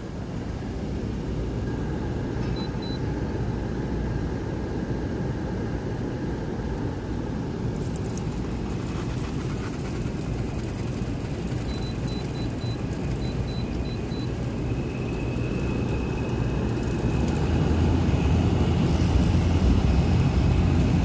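Friedrich R32 10,000 BTU window air conditioner starting up, heard from outside through an open window: a steady running noise with a few short beeps, then a louder low hum building about three quarters of the way through as the unit comes up to speed.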